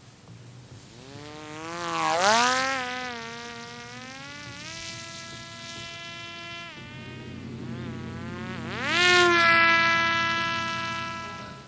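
Parrot Disco flying wing's electric pusher propeller buzzing in flight, its pitch gliding up and down. It grows loud twice, about two seconds in and again near the end, as the wing passes close.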